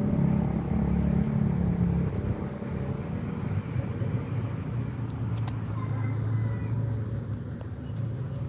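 A motor vehicle engine running close by: a steady low hum that drops in pitch about two seconds in and carries on lower.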